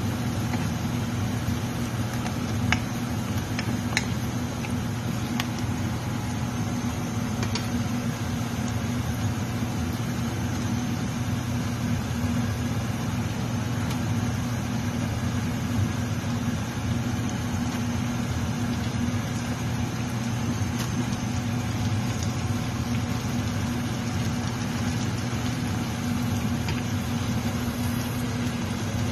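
Steady low mechanical hum of a running motor or fan. A few light clicks come in the first several seconds, from a wooden spoon knocking against the enamel pot.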